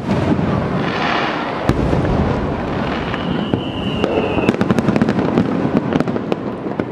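Fireworks display going off in quick succession: a continuous rumble of shell bursts and launches. A high whistle comes in about three seconds in, and a run of sharp crackles follows around the five-second mark.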